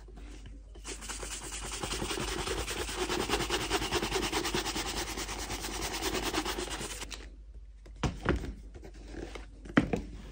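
Bristle shoe brush buffing a leather boot in rapid back-and-forth strokes for about six seconds, a first buffing of the freshly applied conditioning cream. Then a couple of short knocks as the boots are handled and set down.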